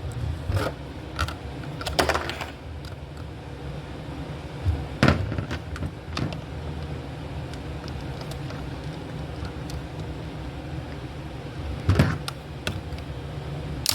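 Scattered clicks and knocks of small flat-blade screwdrivers prying at a gel blaster's plastic nose cone, the sharpest about five seconds in and another near the end, over a steady low hum.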